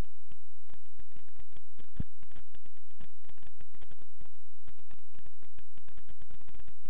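Rapid, irregular crackling clicks over a low steady hum, with one louder click about two seconds in.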